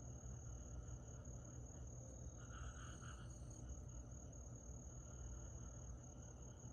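Summer night insects, mainly crickets, chirping in chorus: a steady high-pitched trill, with a lower chirping that swells briefly about two and a half seconds in. A low, steady rumble runs underneath.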